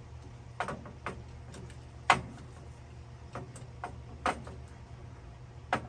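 Wooden blank being handled and seated onto a bandsaw circle jig's pivot pin: about seven separate sharp clicks and knocks, the loudest about two seconds in, over a steady low hum.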